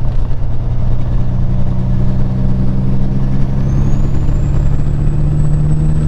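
Peterbilt 379 semi truck's diesel engine droning steadily in the cab while driving down the highway, its pitch rising a little in the second half. A faint high whine comes in about three and a half seconds in.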